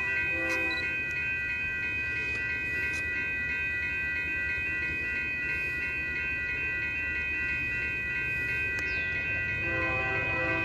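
Distant diesel locomotive horn on an approaching Union Pacific coal train: a short blast at the start, then a longer one beginning near the end. Under it are a low rumble and a steady high-pitched ringing tone.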